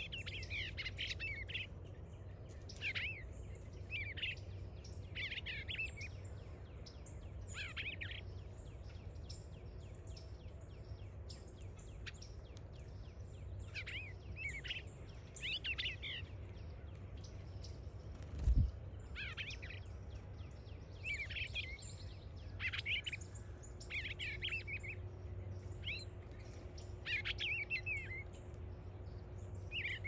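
Small songbirds singing short warbled phrases, one every second or two, over a steady low rumble. A single dull thump comes about two-thirds of the way through.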